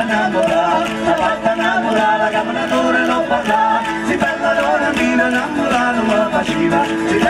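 Live tammurriata folk music: a voice singing over a fast, steady beat of tammorra frame drums with jingles, with the clicking of dancers' castanets.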